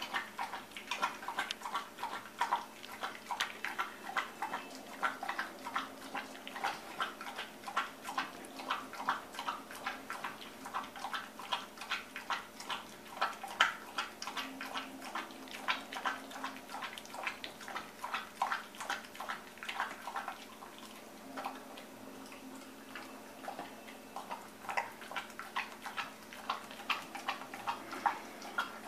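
A dog eating soft, wet homemade food from a stainless steel bowl: quick smacking and lapping of mouth and tongue, two or three strokes a second. It eases off briefly about two-thirds of the way through, then picks up again.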